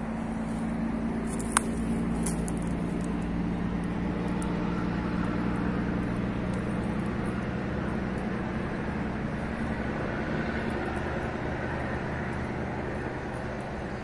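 Steady low engine hum with outdoor background noise, and a single sharp click about one and a half seconds in.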